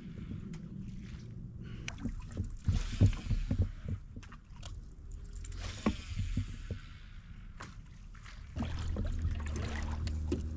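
Scattered knocks and clicks of fishing gear being handled in a small boat, over a steady low hum that gets louder about eight and a half seconds in.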